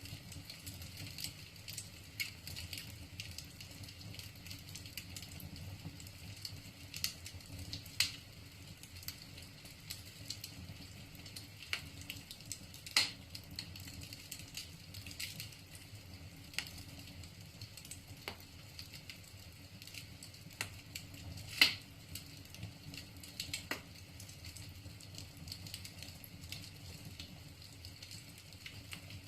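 Wood fire burning in a fireplace, with irregular crackles of burning logs and a few louder pops about 8, 13 and 22 seconds in, over a steady low background.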